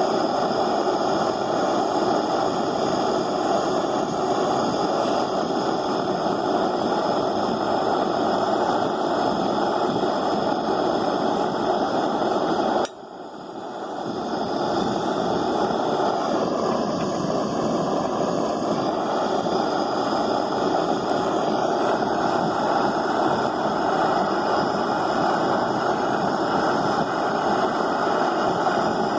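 Handheld butane gas torch burning steadily with a continuous roar while it heats aluminium. The roar cuts out sharply about thirteen seconds in and builds back up over a second or two.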